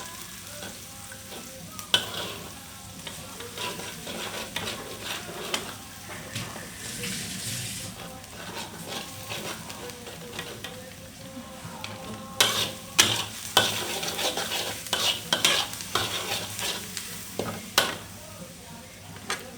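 Chopped onion, small chillies and a chicken stock cube sizzling in hot oil in a pan, while a spoon stirs and scrapes against the pan. A flurry of sharp clacks from the spoon on the pan comes in the second half.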